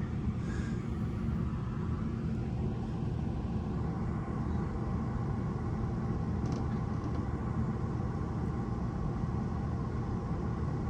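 Dust-storm wind rumbling steadily against a motorhome and the microphone.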